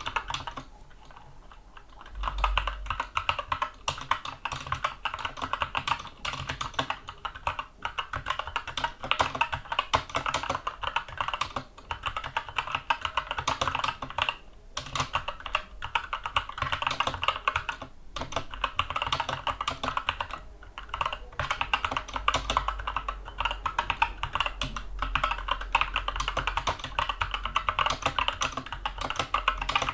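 Skyloong SK64 mechanical keyboard with Gateron Brown tactile switches being typed on in a fast, continuous stream of key clicks. The typing stops for about two seconds at the start and pauses briefly a few more times.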